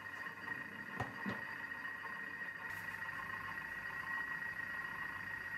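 Thermomix TM6 running as it cooks soup, giving a steady high whine. Two light clicks come about a second in, and a low hum comes in about two and a half seconds in.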